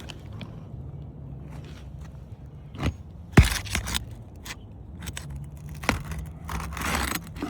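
Scattered knocks, clicks and scrapes of asphalt shingles being worked loose from a shed roof, with one sharp loud knock about three and a half seconds in and a scraping stretch near the end. A steady low hum lies under it all.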